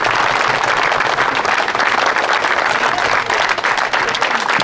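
A small crowd applauding: many hands clapping steadily.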